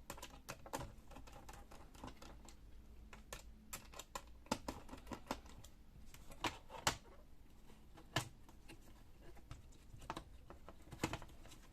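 Irregular small clicks and taps of a screwdriver on a screw and of plastic laptop parts being handled, as the CPU fan is unscrewed and lifted out.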